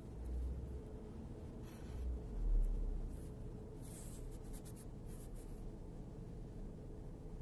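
Toshiba Shorai Edge inverter air conditioner giving off a steady whine over a low hum, an abnormal noise from a brand-new unit that no service has been able to fix. Scratchy rustling and a low thump cut in a few times over it.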